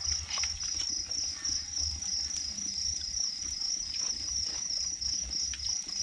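Crickets chirping in a steady, rapid, high-pitched pulse.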